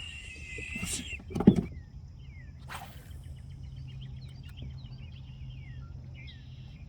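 Two knocks about a second and a second and a half in, the second louder, then a short swish. After that, small birds chirp over a steady low hum.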